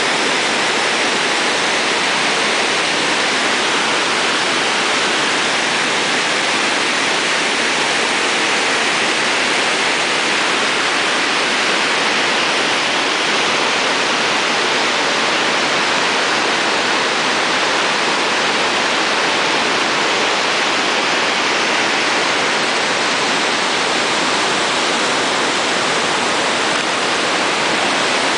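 Water released from Kurobe Dam, a concrete gravity dam, rushing in a loud, steady, unbroken roar.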